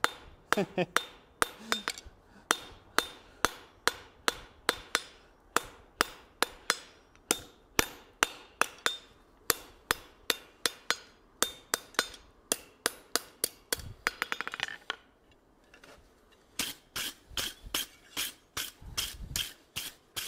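Hand hammer striking a hot steel tong handle on an anvil at about three blows a second, knocking the corners off to make the handle octagonal. The blows stop for about two seconds, then a run of lighter, less regular strokes follows.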